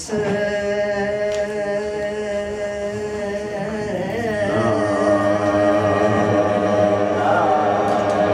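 Droning, chant-like music of long held tones that swells and changes to a fuller chord about four and a half seconds in.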